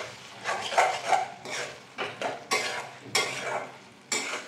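A flat spatula scraping and stirring a thick tomato-onion masala in a metal kadai, in repeated strokes about every half second, as the masala is fried down (kosha).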